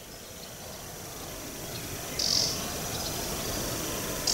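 A small bird gives two short, high, hissing calls about two seconds apart, a strange sound, over a faint steady background.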